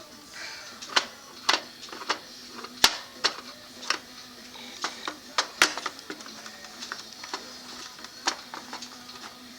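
Irregular clicks and taps of a screwdriver and small screws on the plastic casing of a toy doorbell as it is unscrewed, over a faint steady low hum.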